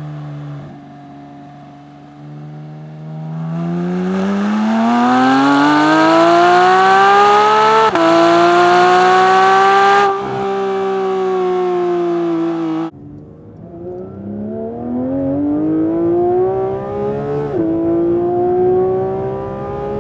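Porsche 992 GT3's 4.0-litre naturally aspirated flat-six accelerating hard through its exhaust, revs climbing steeply with a quick upshift about eight seconds in, then climbing again. About thirteen seconds in the sound cuts to a duller in-cabin recording of another full-throttle pull, with an upshift near the end.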